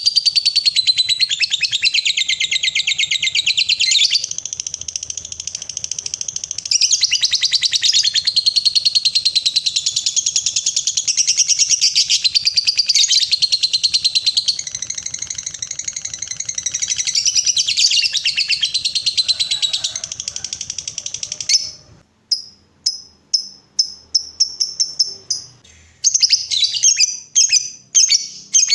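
Lovebird giving its long 'ngekek' chatter: one continuous, rapid, rattling trill, high-pitched, kept up for about twenty seconds. This is the long chatter that lovebird keepers prize. It then breaks off into short separate chirps, about two a second.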